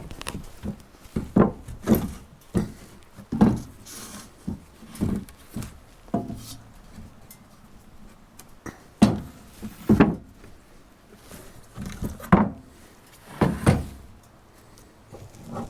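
Irregular wooden knocks and thumps, a dozen or so, as sawn boards are handled and set down, with the loudest near the middle and toward the end.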